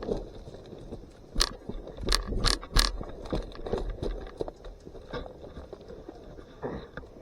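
Footsteps and scraping of someone moving through dry brush, with a cluster of sharp cracks and knocks about one and a half to three seconds in.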